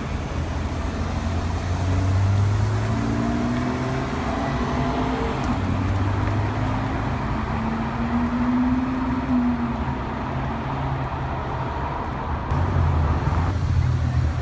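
Supercar engines revving as cars accelerate away, over steady traffic hum; engine pitch climbs in steps a few seconds in, and another engine tone swells around eight to nine seconds in.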